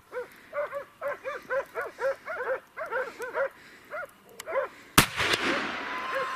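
Hunting dogs barking in quick yelps, about three a second, that pitch up and down. About five seconds in comes a single rifle shot, the loudest sound, with a trailing echo.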